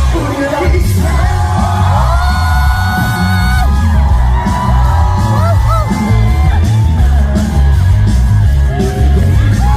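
Live trot song played loud over a PA, with a heavy steady beat and a singer's voice, while fans yell and whoop close to the microphone.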